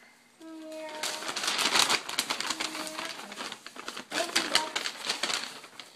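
Rapid, irregular clicking and tapping as a toddler handles a computer mouse, with a few brief vocal sounds.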